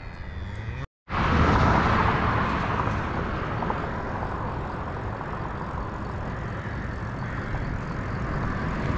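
Steady rushing wind and road noise, the kind heard while moving along an open highway. It cuts in abruptly after a split-second dropout about a second in and is loudest just after.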